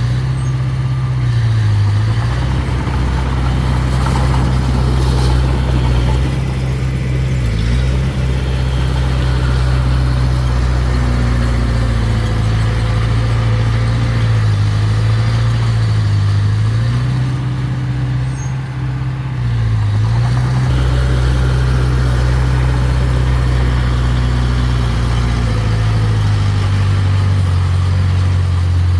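Diesel engine of a construction machine running steadily at a low drone, its pitch dipping briefly about five times and recovering each time. It settles a little lower near the end.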